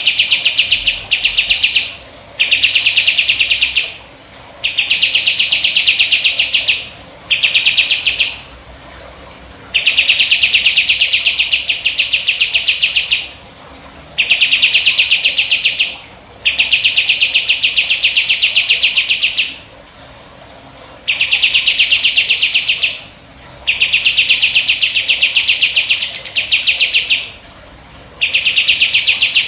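A 'jenggot' songbird singing its rapid-fire 'tembakan' song: high, fast trills in bouts of one to three seconds, broken by short pauses.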